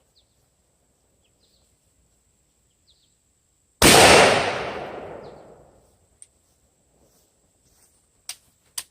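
A single blast from a Lucio Loyola 12 gauge side-by-side shotgun about four seconds in, its report fading away over about two seconds. A few short, sharp clicks follow near the end.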